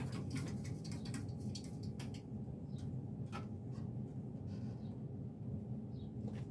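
Steady low hum of a vintage Homestead Universal ceiling fan. A quick run of small clicks and taps comes in the first two seconds, then a few scattered clicks.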